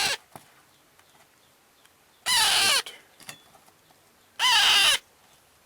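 Alexandrine parakeet chick, about a month old, giving two loud, harsh calls about two seconds apart, each about half a second long.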